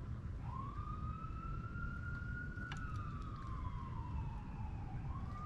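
Emergency-vehicle siren wailing: its pitch rises, holds, slides slowly down, then rises again near the end, over a steady low rumble. A single light click about halfway through.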